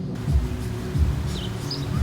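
Background music with steady low tones and a low beat about every half second, with a few short high chirps over it.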